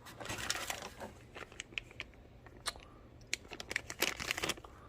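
Plastic packaging crinkling and tearing as small parts are unwrapped and handled, with scattered light clicks and taps; the rustling is heaviest in the first second and again near the end.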